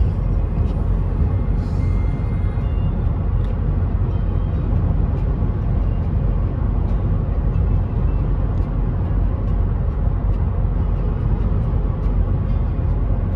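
Steady road and tyre noise with engine rumble heard inside a vehicle's cabin while cruising at highway speed.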